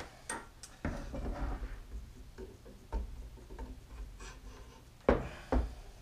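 Clicks and knocks of the X-Carve's Z-axis carriage being handled and fitted against the X-axis gantry rail, with a louder knock about a second in and two sharp knocks close together about five seconds in.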